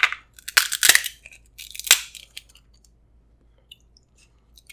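Cooked Dungeness crab leg shell cracking and crunching as it is squeezed in a metal crab cracker, several sharp cracks over the first two seconds.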